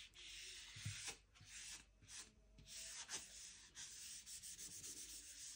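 Whiteboard eraser wiping marker writing off a whiteboard: a faint run of back-and-forth rubbing strokes with brief breaks between them.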